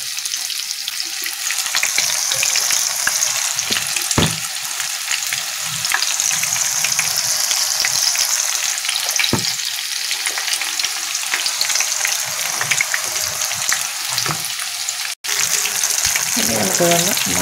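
Spring onion and chickpea-flour batter fritters frying in hot oil in a pan: a steady sizzle full of small crackles, with a couple of light knocks.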